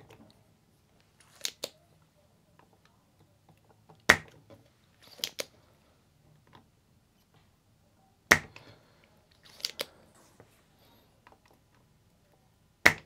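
Spring-loaded manual desoldering pump snapping as its plunger is released to suck solder from circuit-board pads, three sharp snaps about four seconds apart. Quieter double clicks between the snaps come from the plunger being pushed down and latched again.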